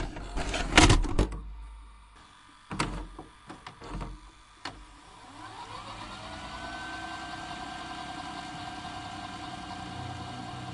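VHS cassette deck sound effect: a cluster of clicks and clunks as a tape loads, then about five seconds in a whine rises in pitch and settles into a steady hum as playback starts.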